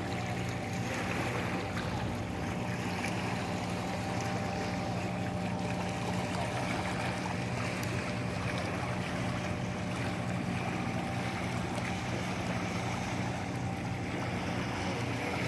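Small waves lapping gently over low rocks and tide pools on a calm sea, a light murmur of water, with a steady low hum underneath.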